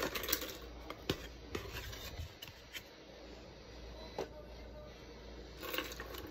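Handling noises: scattered light clicks and taps, with soft rustling near the end, as things are moved about by hand.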